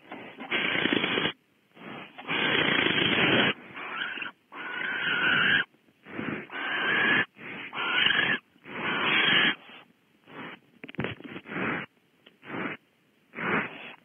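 Barn owls in the nest cavity giving a run of hissing snore calls, each about a second long, some with a screechy tone in them and shorter ones toward the end: the food-begging and food-exchange calls as prey, a rat, is brought in.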